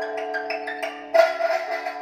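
Instrumental music played back through a home hi-fi system's bookshelf speakers: struck, ringing notes over sustained tones, with a louder note a little past halfway.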